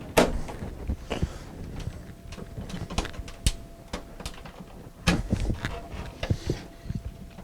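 Irregular plastic clicks and knocks of a desktop computer case's front panel being worked loose by hand, with a cluster of quicker knocks a little after halfway.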